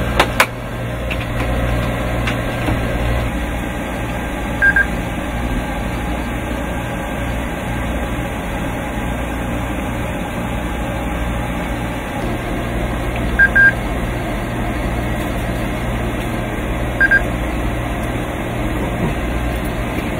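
Steady low engine hum, with three short high double beeps from an electronic radio test set as its keys are pressed: about five seconds in, near thirteen seconds and near seventeen seconds.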